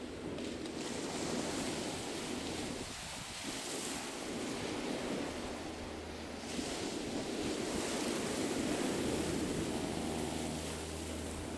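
Sea waves washing onto a shore, a continuous surf noise that swells and eases, with wind rumbling on the microphone.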